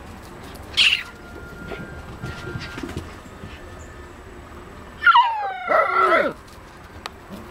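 Alaskan Malamute puppy crying: a short high squeak about a second in, then a loud whining cry of over a second that slides down in pitch near the end.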